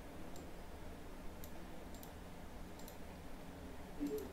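Several faint computer mouse and keyboard clicks, spaced irregularly about a second apart, over a low steady hum.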